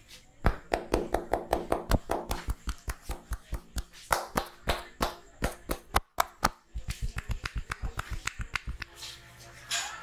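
A barber's hands rapidly slapping and tapping on a man's head in a percussive head massage, about five claps a second. There is a brief break about six seconds in, then a faster run that stops shortly before the end.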